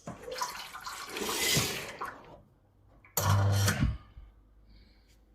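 Milesto EM-30 espresso machine: a rush of water hissing for about two seconds, then a short, loud pump buzz about three seconds in that lasts under a second and cuts off suddenly.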